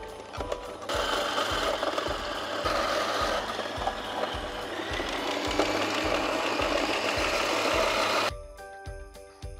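Kenwood Cooking Chef's food-processor grating attachment running as carrot and celery are pushed through the feed tube and shredded. It starts about a second in and stops suddenly near the end. Background music with a steady beat plays underneath.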